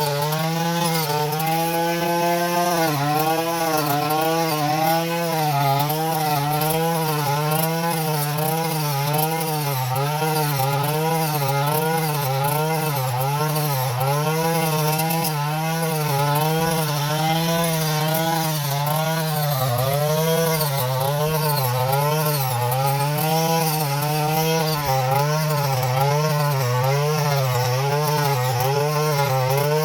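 Small engine of a mini rice harvester running steadily, its pitch rising and falling a little more than once a second.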